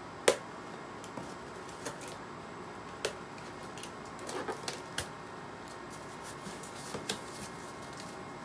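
Hands handling a cardboard shipping box: scattered taps, scrapes and rustles of cardboard as it is turned and its top flaps are pulled open, the sharpest tap just after the start and a quick run of small ones near the middle.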